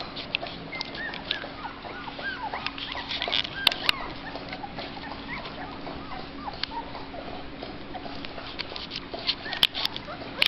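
A litter of two-week-old Labrador puppies squeaking and whimpering, with many short, high squeaks that rise and fall and overlap one another. There are a few sharp clicks, one around four seconds in and two near the end.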